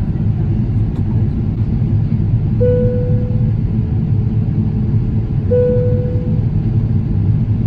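Steady low rumble of an airliner's cabin noise in flight, the engines and airflow. A single chime tone sounds twice, each fading over about a second, roughly three seconds apart.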